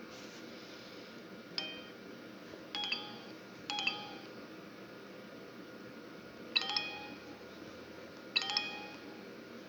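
Samsung U900 Soul mobile phone playing a ringtone through its speaker: a few short, bell-like chime notes with a pause in the middle, over a faint hiss.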